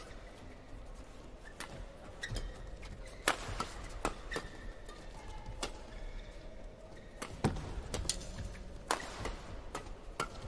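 Badminton rally: rackets striking the shuttlecock in quick sharp cracks at an uneven pace, roughly a dozen hits, with brief squeaks of court shoes on the mat between them.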